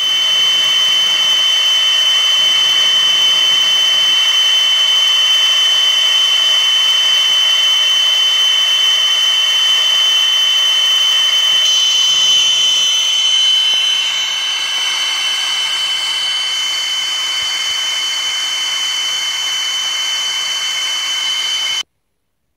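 Laser engraving machine running as it stipples a relief pattern into a polymer firearm grip: a loud, steady whine with one strong high tone. The upper hiss changes about halfway through, and the sound cuts off suddenly near the end.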